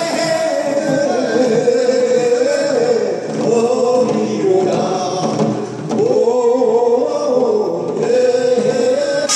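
A man singing a Korean traditional song into a microphone in long, wavering held notes, with short breaks between phrases about three, six and eight seconds in; the percussion mostly drops out beneath the voice.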